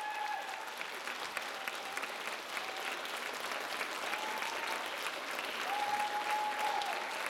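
Audience applauding, a dense run of clapping, with a few long, high, held whoops from the crowd over it.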